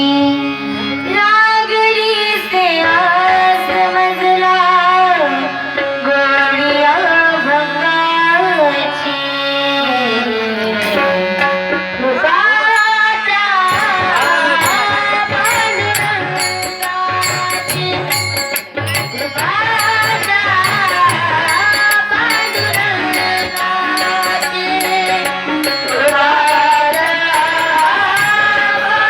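A woman singing an ornamented Indian melody with gliding, held notes, accompanied by tabla. From about halfway through, a steady percussion beat joins in.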